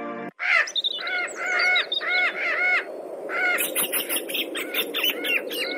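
A flock of parakeets squawking: a run of short, shrill calls, each rising and falling, several a second in quick groups over a busy background of chirping. The calls start about a third of a second in.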